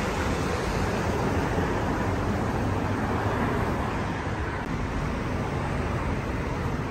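Steady road traffic noise from a busy street: a continuous wash of passing cars, heaviest in the low end.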